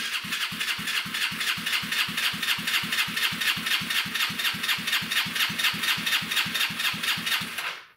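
1985 Honda Elite 150's single-cylinder engine being turned over on its electric starter with the muffler off. A steady whirring chug runs at about five or six compression strokes a second for nearly eight seconds, then stops abruptly without the engine catching; the owner is unsure whether it is getting any fuel.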